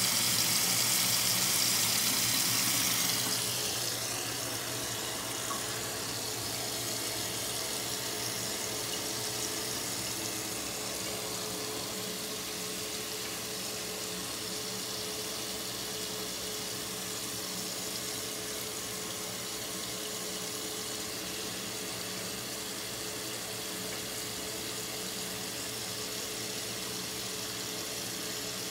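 Tap water running into a bathroom sink: a loud stream for the first three or four seconds, then a softer, steady flow.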